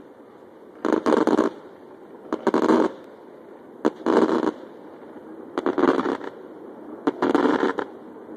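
Aerial fireworks shells bursting, five loud booms about a second and a half apart, each a short cluster of bangs lasting about half a second.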